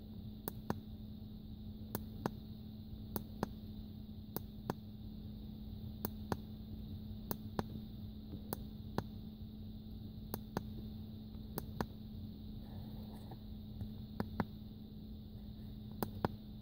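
Scroll button of a Konnwei KW806 OBD2 code reader clicking as it is pressed over and over: sharp clicks, mostly in pairs, about once a second, over a steady hum.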